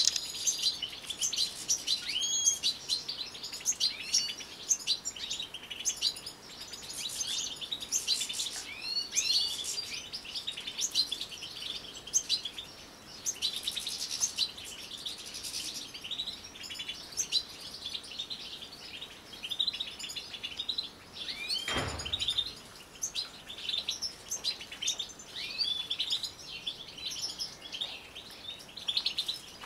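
A flock of caged European goldfinches twittering and chirping continuously, many calls overlapping. About 22 seconds in there is a single dull thump.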